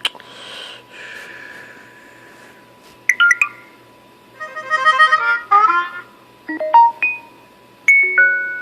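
LG G4 smartphone notification tones played one after another: a click, then a string of short electronic chimes and quick note runs, each lasting under a second, with brief gaps between them.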